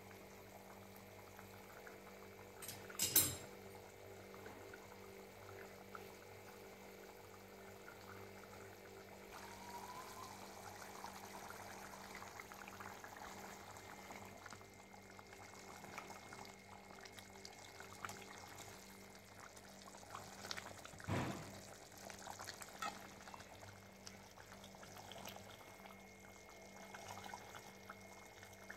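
Prawn masala curry bubbling in an aluminium pot while a metal ladle stirs it, with scraping and small clinks against the pot. There are two sharp knocks of the ladle on the pot, about three seconds in and near twenty-one seconds, over a faint steady hum.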